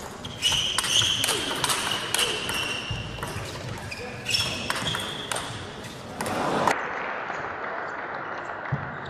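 Table tennis rally: a celluloid ball clicking in quick succession off the bats and the table, with shoes squeaking on the court floor. About two-thirds through it stops abruptly, and the sound gives way to a steady hall murmur and a single ball bounce.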